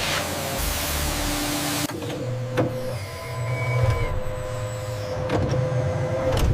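Industrial machinery running: a hissing noise, then, about two seconds in, an abrupt change to a steady electric motor hum with a few sharp clicks.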